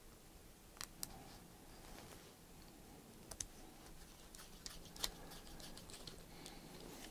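Small precision screwdriver driving the tiny back-panel screws of a Bangle.js smartwatch: faint, scattered clicks and ticks of the driver and the watch case in the fingers. The sharpest click comes about five seconds in, amid a run of lighter ticks.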